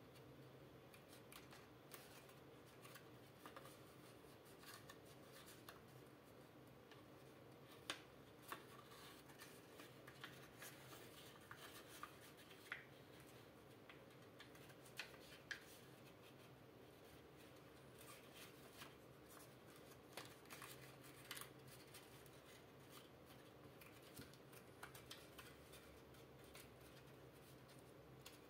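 Origami paper being folded and creased by hand: faint scattered rustles and crisp crinkles, with a few sharper crackles about eight, thirteen and fifteen seconds in. A faint steady hum runs underneath.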